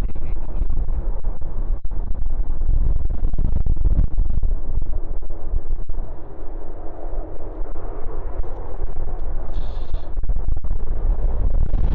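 Strong wind buffeting a phone microphone, a heavy distorted rumble full of brief dropouts. The deep rumble eases about six seconds in while a mid-pitched rushing noise grows.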